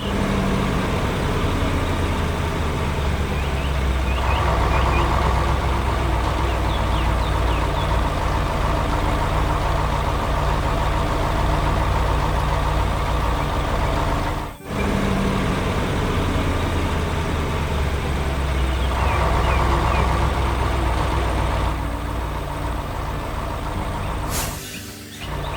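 Heavy truck engine running steadily with a low rumble. It breaks off for an instant about halfway through and starts over, like a looped sound effect.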